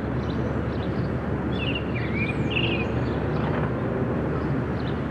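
Steady outdoor background noise, a low rumble under a hiss, with a few short high chirps about two seconds in.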